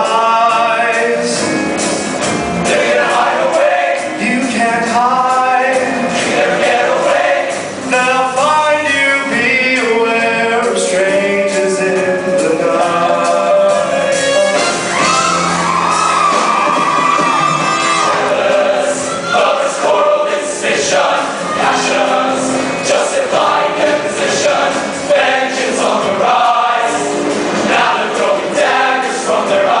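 High school show choir singing a lively number with accompaniment and frequent sharp beats. About halfway through, a single long high note with vibrato rises above the ensemble.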